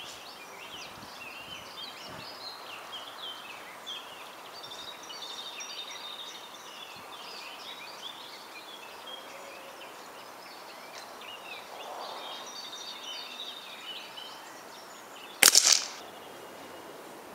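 Birds chirping steadily in the background, and near the end a single loud, sharp shot from a Diana P31 air rifle with a brief ring after it.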